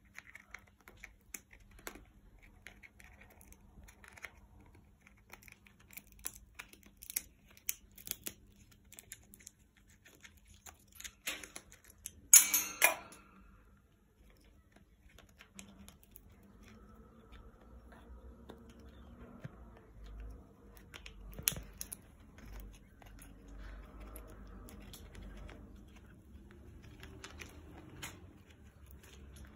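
Green-winged macaw gnawing and cracking a walnut shell with its beak: scattered sharp clicks and scrapes, with a loud burst of cracking near the middle and another sharp crack later.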